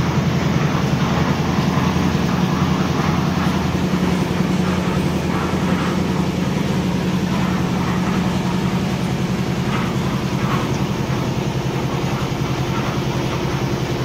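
A steady low mechanical drone that runs without a break or a change in pitch.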